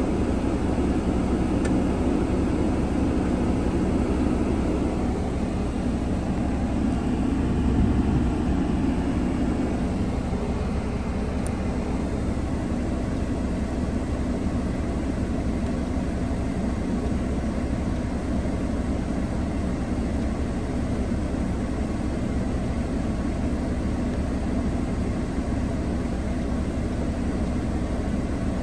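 2020 Mercedes-Benz GLB 250's turbocharged 2.0-litre four-cylinder idling in Park, heard from inside the cabin as a steady low hum. A rushing noise over it eases off around five to ten seconds in.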